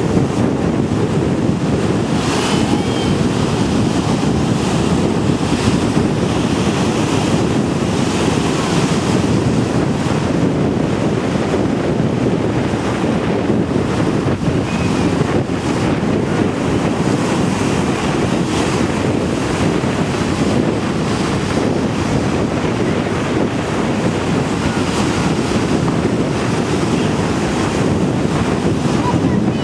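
Ocean surf breaking and washing up the beach, with steady wind buffeting the microphone.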